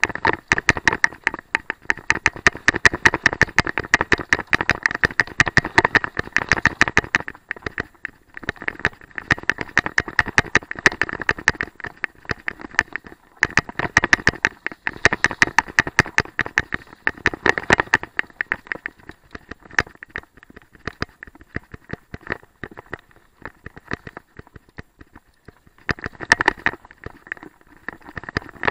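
Mountain bike rattling and clicking as it runs fast down a rough dirt singletrack: a dense stream of sharp clicks that thins out for several seconds about two-thirds of the way through, then returns.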